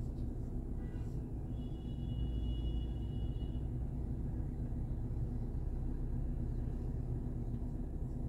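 Steady low rumble of a running vehicle, with a faint high-pitched tone lasting about two seconds near the start.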